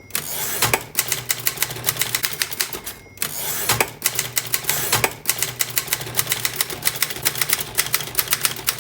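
Vintage Remington Rand manual typewriter being typed on: rapid keystrokes, several a second, with a short pause about three seconds in and a few heavier strikes.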